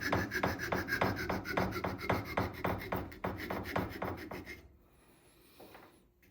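Hand saw cutting into a tupelo wood carving block, rapid back-and-forth strokes at about five a second, stopping about four and a half seconds in.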